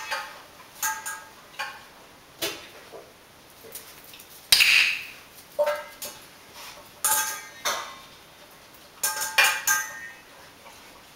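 Sharp metallic clinks and rattles from a stainless steel dog bowl on a tile floor as a puppy eats kibble from it, about a dozen, each ringing briefly. There is one longer, louder rattle about four and a half seconds in.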